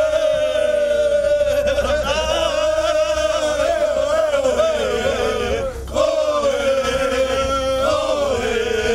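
A group of men chanting together in celebration: one long sung line, held and wavering, with a brief break about six seconds in.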